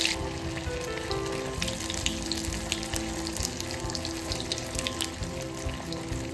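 Dahi kebab deep-frying in very hot oil: a steady sizzle with scattered crackles.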